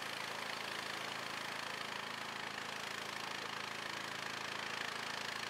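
Engine of a box truck running steadily as it drives slowly through floodwater, with an even hiss over it.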